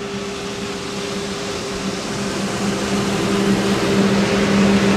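Passing motorboat's engine running, a steady drone that grows louder as the boat approaches.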